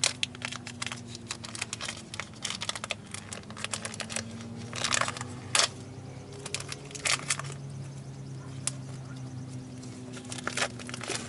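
Crinkling and clicking of packaging as a new oil filter is unwrapped and handled, in irregular bursts, over a steady low hum.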